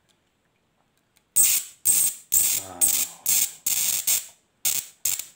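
High-voltage arcs jumping from a TV flyback transformer driven by a TIP3055 transistor oscillator: about eight short, sharp, hissing bursts of arcing, the first about a second and a half in. Each burst is a fraction of a second long, with brief gaps between them.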